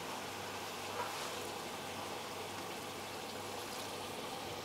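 Faint, steady hiss of a pan of peas in tomato masala simmering as warm water is ladled in, with one small tick about a second in.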